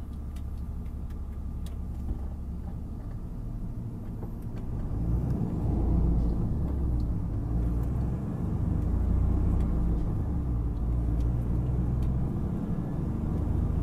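Low road and engine rumble of a moving vehicle, heard from on board, growing louder about five seconds in.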